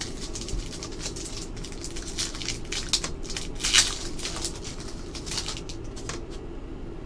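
Trading cards being handled and flipped through by hand: a run of short dry slides and clicks of card stock, with one louder crisp rustle just before halfway.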